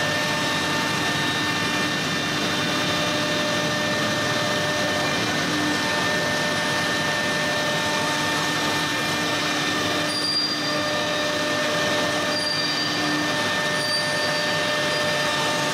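Chencan CC-M1325AC3 CNC door router machining a wooden door panel: the spindle motor runs with a steady whine over a constant hiss of cutting. A few faint short high tones come in over the last third.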